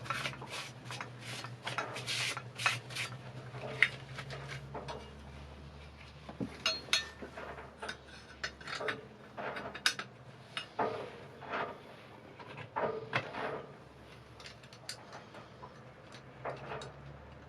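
Hand work on an engine's belt drive: irregular rubbing and scraping with light metallic clinks of tools and parts being handled, over a steady low hum.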